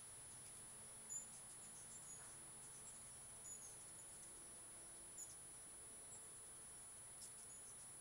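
Near silence broken by short, very high squeaky chips every second or so, from hummingbirds chasing each other around a nectar feeder. A faint, steady, high whine runs underneath.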